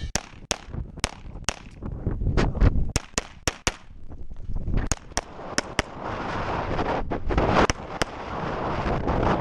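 Glock 35 .40 S&W pistol firing a rapid course of fire: quick pairs and short strings of shots separated by brief pauses, around sixteen in all. Wind buffets the microphone, growing louder from about halfway through.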